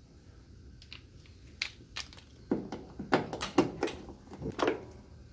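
A wrench being worked on a fastener at a car's firewall: a run of irregular metal clicks and light knocks, sparse at first and thickest in the second half.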